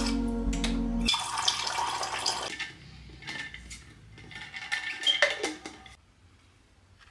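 Refrigerator door water dispenser filling a tumbler: a steady hum for about the first second, then water pouring in until about two and a half seconds. After that comes a scatter of light clinks and knocks until it goes quiet near the end.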